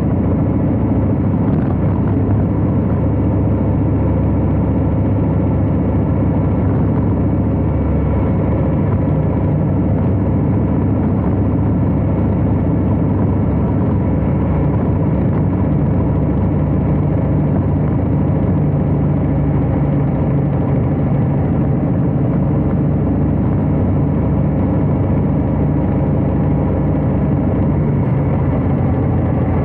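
Harley-Davidson Heritage Classic FLHC V-twin engine running steadily with a nearly constant pitch, at an even loudness throughout.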